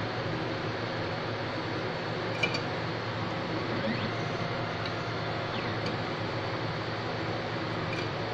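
Optical frame tracer tracing an eyeglass frame's rim groove with its stylus: a steady motor whir with faint whines rising and falling and a few light clicks.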